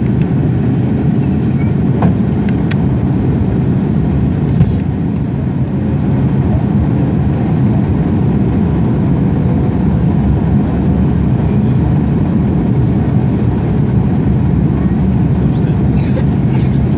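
Steady cabin noise inside an Airbus A330-300 airliner on its landing approach: a constant low rumble of the engines and airflow, with a few small clicks.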